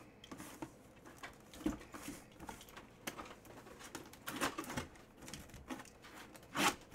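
A shrink-wrapped cardboard box being handled: scattered rustles of the plastic wrap and a few soft knocks, louder about four and a half seconds in and again near the end.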